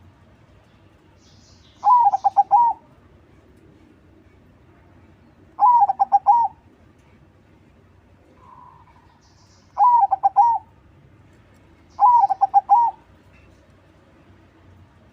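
Perkutut crossing (crossbred zebra dove) cooing: four song phrases, each a quick run of several notes lasting under a second, repeated every two to four seconds.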